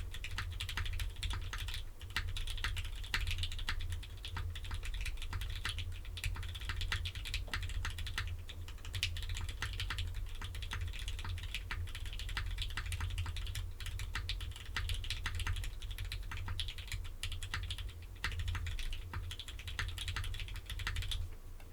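Typing on a mechanical keyboard with linear Gateron Ink Red switches, lubed with Krytox 205g0 and filmed, mounted in an FR4 plate with no foam and capped with GMK doubleshot ABS keycaps. A quick, steady run of keystroke clacks that stops just before the end.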